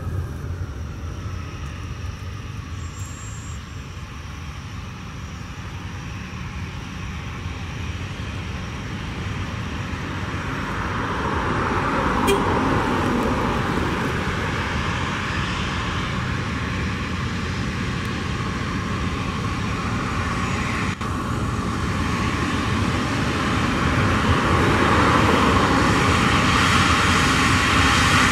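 Airbus A320's jet engines running at low power as it taxis, with a steady whine and rumble. A whine falls in pitch in the first second, and the sound grows louder from about ten seconds in and again near the end as the aircraft comes closer.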